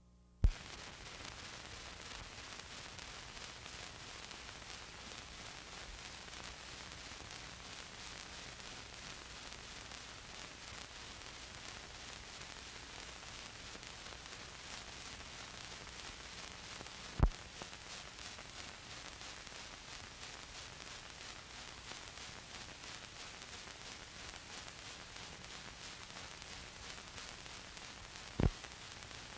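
Steady hiss and static from the soundless opening of an old film transfer, broken by a few sharp pops: one right at the start, one a little past halfway, and two close together near the end.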